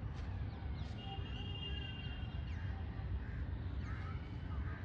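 Many birds calling with short chirps and gliding whistles, one note held for a couple of seconds, over a steady low rumble.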